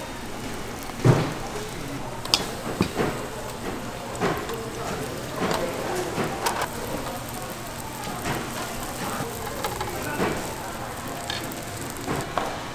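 Korean pancake (buchimgae) batter frying in hot oil in a nonstick pan: a steady sizzle with many small crackling pops, and a sharp knock about a second in.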